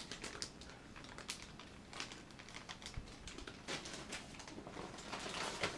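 Plastic packaging crinkling and rustling in the hands: an uneven run of light clicks and crackles as packs of soft-plastic fishing baits are handled and picked through.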